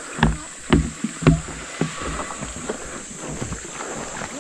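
Footsteps on the planks of a wooden footbridge, about two steps a second, the loudest three in the first second and a half, then softer.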